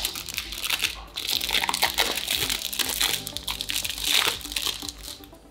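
Cellophane wrap on a perfume box crinkling and crackling as it is torn off by hand, a dense run of crackles that dies down near the end.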